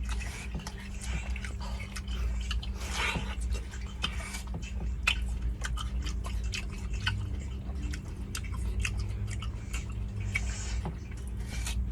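Chewing and biting into watermelon, many small clicks, over a steady low hum.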